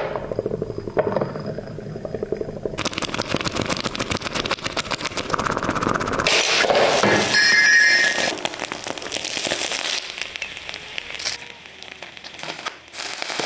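Red-hot metal ball crackling and sizzling as it burns into the material beneath it, with dense rapid crackling through the middle and a few sharp clinks. A brief high whine comes in about seven seconds in.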